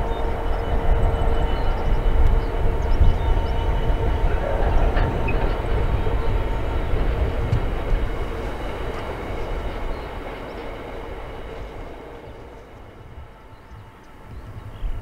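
Class 66 diesel locomotive and its train of box wagons rolling past: a steady rumble of wheels on rail with a faint engine hum. The sound fades gradually from about eight seconds in as the train draws away.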